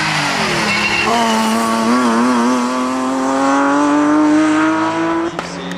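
BMW E36 3 Series race car's engine pulling hard, its pitch dipping briefly at the start and then rising steadily for about four seconds, with a short wavering partway through. Near the end it breaks off sharply into a lower, level engine note.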